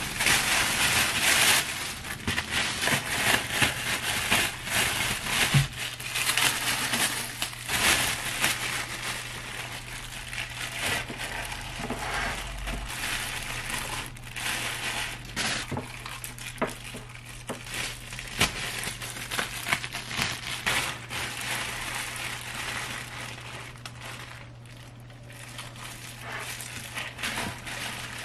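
Thin plastic bags crinkling and rustling as bagged cabbage kimchi is lifted out of a shopping bag and squeezed from its plastic bag into a glass container. The crinkling is loudest in the first couple of seconds.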